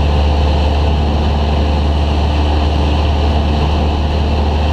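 Cessna 172's piston engine and propeller running steadily in flight, heard inside the cabin as a loud, even, low drone with no change in pitch.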